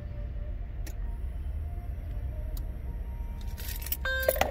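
Steady low rumble inside a car, with a couple of faint clicks, some rustling handling noise near the end, and a short electronic beep just before the end.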